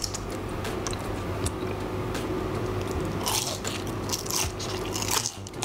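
Close-up crunching of an oven-baked fried onion ring being bitten and chewed, with several crisp crunches from about three seconds in.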